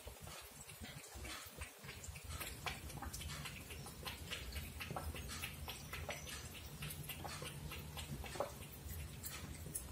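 Siamese cat lapping water from a stainless-steel bowl: a run of quick, soft, wet clicks, a few each second.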